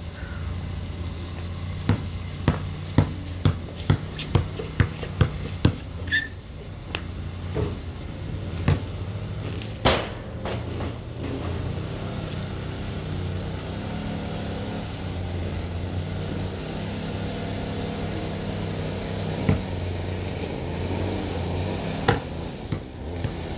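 An engine running steadily, with a series of sharp knocks, about two a second, through the first half and a few scattered ones later.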